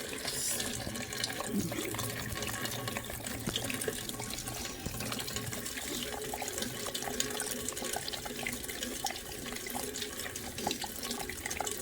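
Rainwater running and splashing steadily, with many small drips and ticks mixed in.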